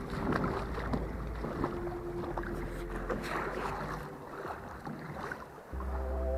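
Someone wading through shallow lake water, with irregular splashing and sloshing around the legs, over a low wind rumble on the microphone. Music comes in near the end.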